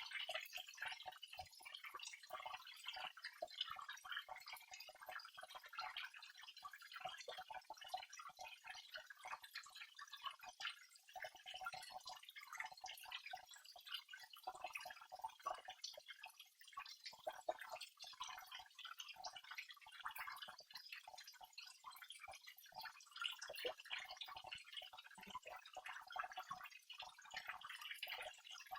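Small waterfall splashing in a steady patter of fine drops, with no deep rumble.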